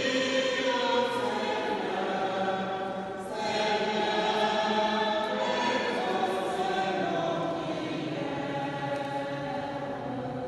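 Church choir singing together in sustained, held notes. It swells about a third of the way in and dies away near the end.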